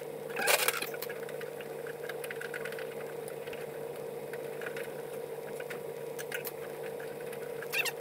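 Small clicks, scrapes and rustling of hand work on a VW Beetle's hood latch, busiest about half a second in and again near the end, over a steady low hum.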